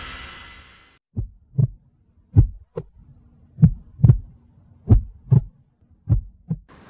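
Heartbeat sound effect: five double lub-dub thumps, a little under one a second, after a rumble fades out in the first second.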